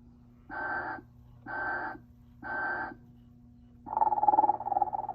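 Telco Motionette animated sleeping Mrs Santa Claus figure playing its snoring sound: three short, identical sounds about a second apart, then a longer rattling snore beginning near the end, over a steady low hum.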